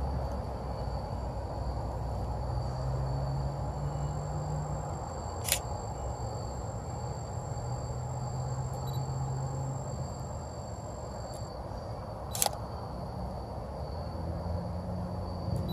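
Two sharp single clicks of a DSLR camera's shutter, about five and a half and twelve seconds in, over a steady low rumble and thin, steady high-pitched tones.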